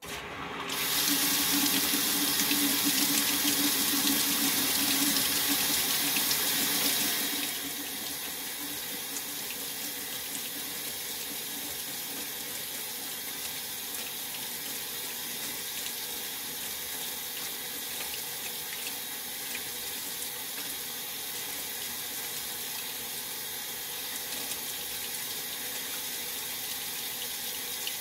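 Maytag Centennial top-load washer filling with water: the fill valve opens suddenly and water rushes into the tub. It is loudest for about the first seven seconds, then settles to a steadier, quieter flow.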